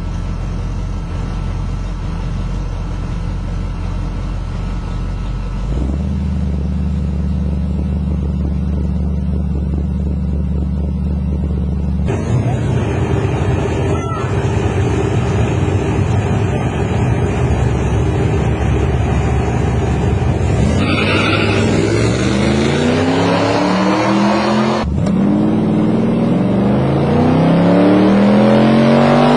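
Drag-racing hot rod engine idling with a steady low rumble, stepping up slightly in pitch about six seconds in. It turns rougher and louder about halfway through. In the last third the engine pitch sweeps up and down, then climbs through the gears on a full-throttle run down the drag strip.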